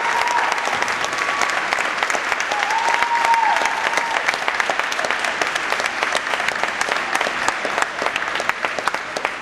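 Crowd applauding, many hands clapping at once, thinning out toward the end.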